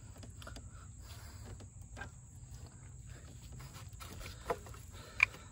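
Faint clicks and scrapes of hands working at a plastic wiring-harness connector in a diesel engine bay, with a sharper click about four and a half seconds in and a louder one near the end.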